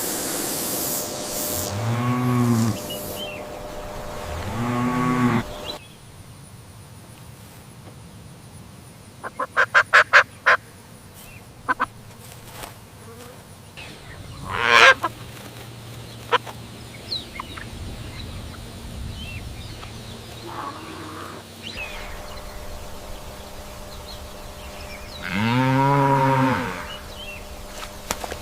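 Cattle mooing: three long, low calls that rise and fall in pitch, two close together at the start and one near the end. In between comes a quieter stretch with a quick run of short sharp calls and a single loud one from another animal.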